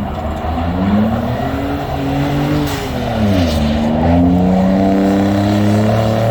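Car engine revving under load, its pitch climbing, dipping sharply about three and a half seconds in, then rising again and holding, as a car is driven hard in snow.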